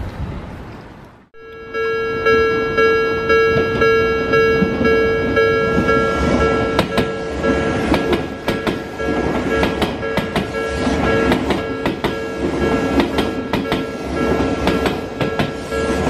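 Japanese level-crossing alarm ringing steadily from about a second in, as an Odakyu commuter train passes close by; from about six seconds in, its wheels clatter over the rail joints.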